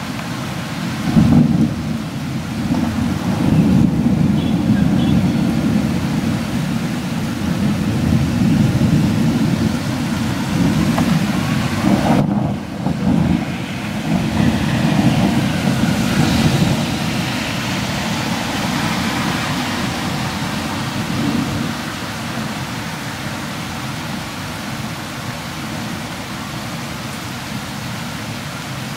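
A long rolling rumble of thunder that breaks in sharply about a second in, swells and rolls on, then dies away after about twenty seconds, over a steady hiss of falling rain.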